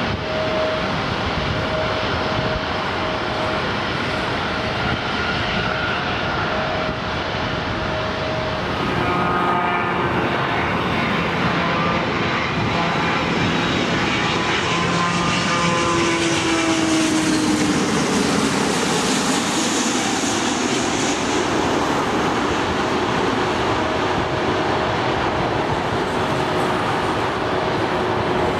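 Jet airliner engine noise: first a steady distant rumble with a level hum from a four-engine jetliner on the runway, then a Boeing 777 passing low on final approach, its engine whine sliding down in pitch as it goes over while the roar grows louder.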